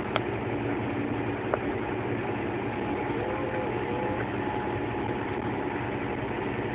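Valtra T130 tractor's six-cylinder diesel engine running steadily under load as its front blade pushes snow, heard from inside the cab.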